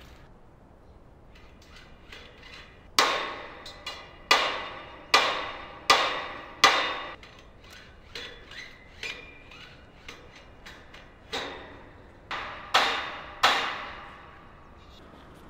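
A hammer striking a metal handrail in a series of ringing blows. Five loud strikes come about three seconds in, each under a second or so apart. Lighter taps follow, then another group of four loud strikes near the end.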